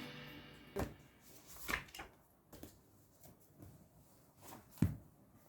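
Background music fading out, then a few faint knocks and clicks in a small room, the loudest near the end.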